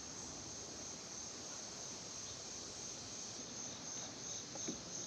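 Evening insect chorus, mostly crickets: a steady high trill, joined from about halfway in by a second insect chirping in a regular pulse, with a soft knock near the end.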